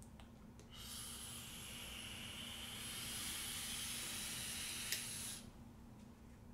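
Vape mod firing its coil through one long drag: a steady hiss of e-liquid vaporising and air drawn through the atomizer, lasting about four and a half seconds. A single click comes near the end, just before the hiss cuts off.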